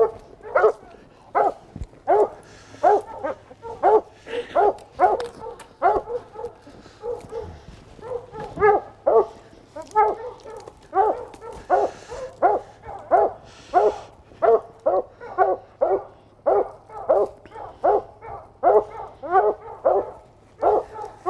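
Hunting hounds, still held back while another dog has been let go on the track, barking steadily and excitedly, about two short barks a second.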